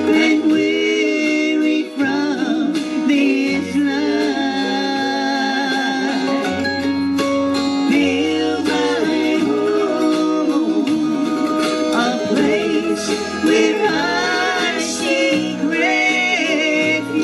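Acoustic country-gospel string band music, with guitar and other plucked strings over a walking bass line.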